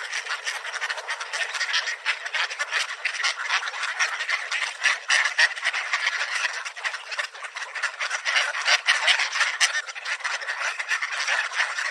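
A large flock of mallard ducks quacking and chattering all at once in a dense, continuous clamour as they crowd in for scattered seed.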